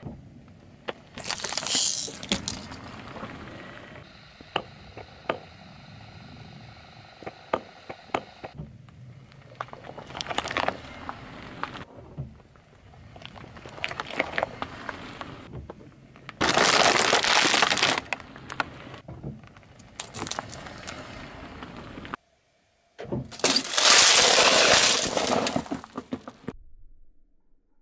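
A car tyre slowly crushing objects under its weight, a series of cracking, crunching and breaking sounds. Several loud bursts of crackling break-up stand out, the loudest near the end as cups of candies are crushed and scatter.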